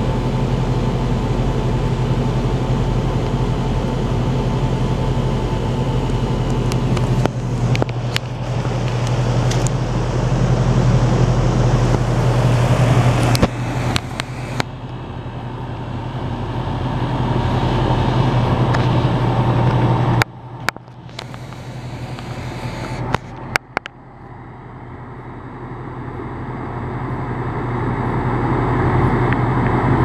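Amana APH1436M41AB packaged heat pump running: a steady compressor hum under the rushing of the condenser fan, with a few sharp clicks. The level drops sharply about twenty seconds in and then builds back up toward the end.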